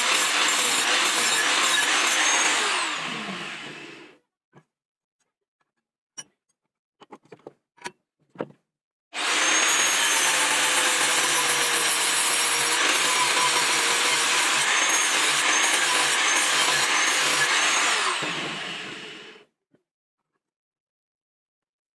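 Electric grinder running on saw-blade steel, then spinning down about three seconds in. A few light clicks follow in the quiet, then the grinder runs again from about nine seconds in and winds down once more near the end.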